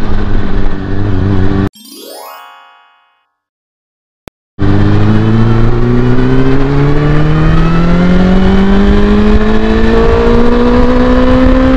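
Honda CB400SF's inline-four with a Yoshimura slip-on muffler running, then cut off by a short rising electronic sweep that fades into near silence with a single click. About four and a half seconds in, the engine comes back accelerating in one gear, its pitch climbing slowly and steadily for about seven seconds.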